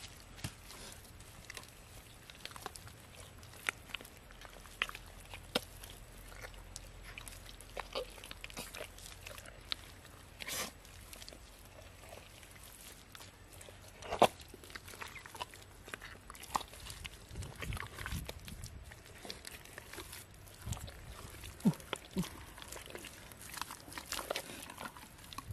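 Hands digging and scraping in wet clay mud, giving irregular scrapes, squelches and clicks, with two sharp knocks about fourteen and twenty-two seconds in.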